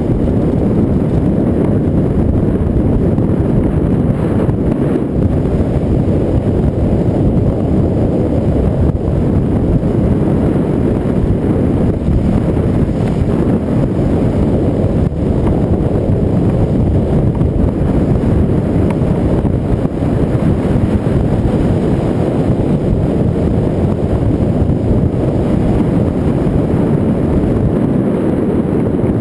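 Loud, steady wind buffeting on an action camera's microphone while moving at speed, a low, even roar with no clear engine note.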